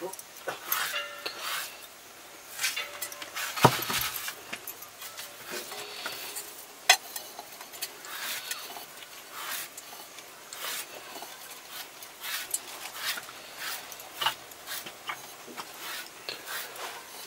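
A utensil scraping and clinking against a cooking pan as food is stirred over a wood fire, with a few sharper knocks against the pan.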